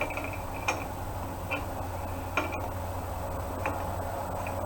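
Scattered metallic clicks from a wrench being worked on the large bolt through the hitch arm's ball, about one click a second.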